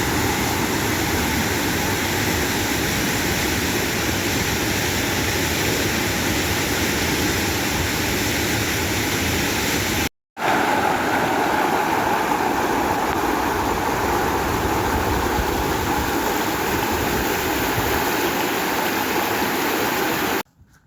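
Loud, steady rushing of fast-flowing water, as from a waterfall or creek rapids. It cuts out for a split second about halfway, then carries on.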